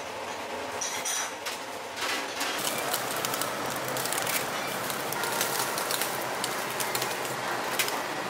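A stew bubbling at a boil in an earthenware pot, then, from about two seconds in, raw beef rib slices sizzling on a wire mesh grill over charcoal with a dense, steady crackle.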